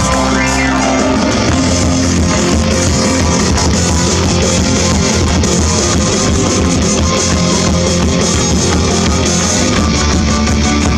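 Live rock band playing through a PA: electric guitars over bass and drums, with no singing.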